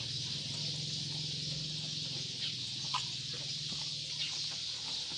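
A goat eating chopped mango from a metal bowl: faint, scattered clicks of chewing and muzzle against the bowl over a steady high hiss and a low hum.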